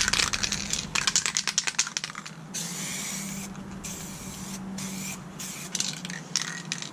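Montana Hardcore aerosol spray can with a standard cap: the mixing ball rattles as the can is shaken, then black paint hisses out in several short sprays, and the ball rattles again near the end.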